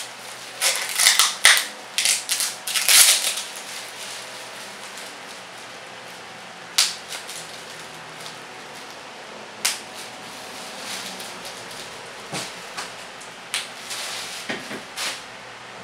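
Bubble wrap being popped by hand, single sharp pops every second or few seconds. In the first few seconds a dense run of louder crackling and ripping: packing tape being pulled off its roll and wound around a plush toy.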